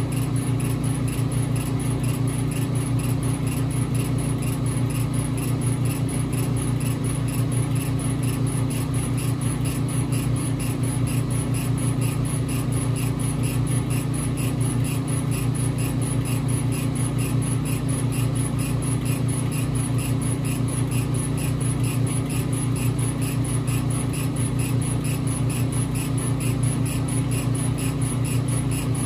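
Epilog Fusion M2 40 laser cutter raster-engraving wood: the laser head shuttles rapidly back and forth, giving a fast, even pulsing over a steady low hum.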